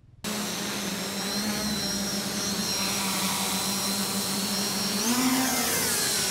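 250 mm FPV quadcopter with SunnySky 2300kv brushless motors and Gemfan 5x3 propellers, hovering with a steady whine of motors and props that starts abruptly. About five seconds in, the pitch rises as it throttles up, then sweeps down as it flies away.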